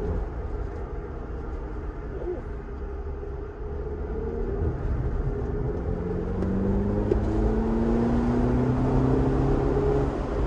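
2022 VW Polo GTI's 2.0-litre turbocharged four-cylinder engine heard from inside the cabin, running under light load at first, then pulling with its pitch and loudness climbing steadily from about four seconds in until near the end.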